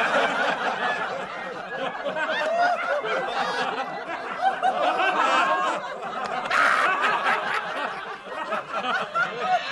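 Laughter of a large audience, many people laughing and chuckling at once, as from a laugh track.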